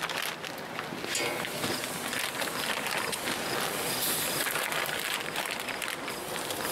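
Sauced chicken wings sizzling on the hot top rack of a gas barbecue as they are laid on, an even hiss with a fine crackle.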